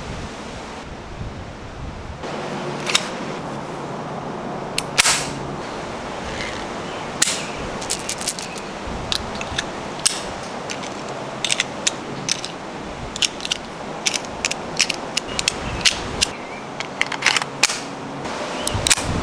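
Sharp metallic clicks and snaps from handling a Luger P08 pistol: a few single clicks, then a quick run of clicks as 9mm cartridges are pressed one by one into its magazine.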